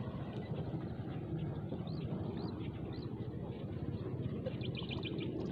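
Steady wind rumble on the microphone, with three short high bird chirps about two to three seconds in and a quick twittering trill near the end.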